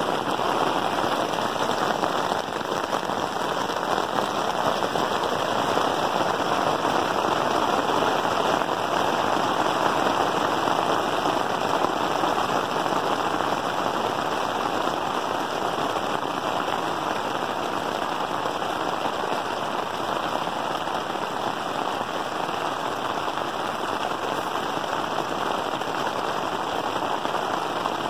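Hail pelting the fabric of a tent, heard from inside: a dense, steady patter of countless small impacts.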